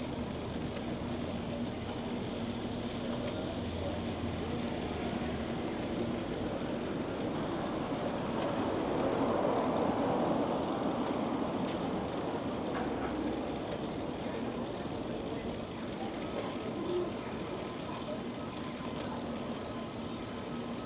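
Steady city traffic noise that swells as a vehicle passes about halfway through.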